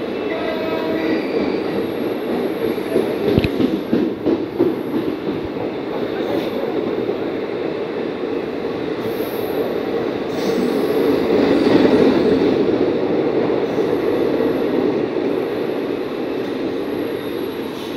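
Blue ICF passenger coaches rolling past at speed: a steady wheel-on-rail rumble, with a few sharp knocks about three to five seconds in and a swell in loudness around twelve seconds, easing off as the last coach passes.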